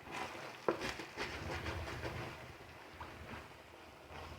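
A spoon stirring and scraping rice and spices in a pan, with several sharp clicks against the pan over a low rumble.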